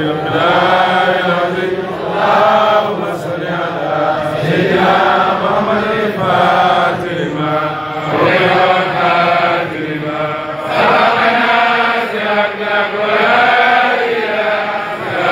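Many men's voices chanting together in short repeated phrases, a steady religious chant by the crowd.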